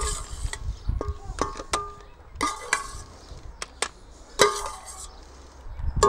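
A metal slotted spoon clinking against a stainless steel pot while boiled potatoes are scooped out for the potato ricer. Several irregular knocks each ring briefly, the loudest about four and a half seconds in.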